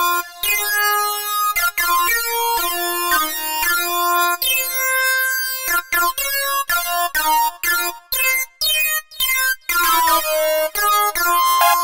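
Background electronic music: synthesizer notes in a quick melody with brief stops and gaps.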